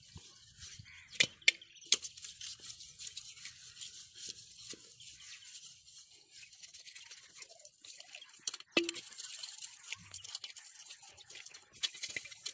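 Cooking utensils being scoured by hand, a steady scratchy scrubbing with three sharp clinks a second or two in and another about nine seconds in.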